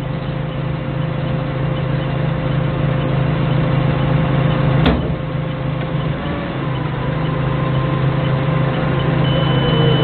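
Doosan 4.5-tonne forklift engine running steadily, heard close from the operator's seat, with a single sharp click about five seconds in.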